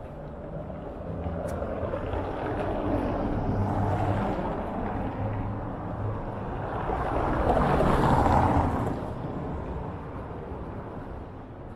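Street traffic passing close by: two vehicles in turn swell and fade, the second the loudest, about eight seconds in.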